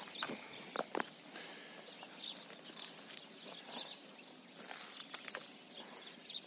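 A horse's hooves clopping a few times on pavement in the first second, then softer steps on grass, with small birds chirping in the background.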